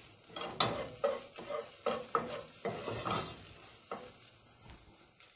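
Chopped garlic lightly frying in butter in a nonstick saucepan, stirred with a plastic spoon: a faint sizzle under repeated scraping strokes, about two a second, that thin out near the end.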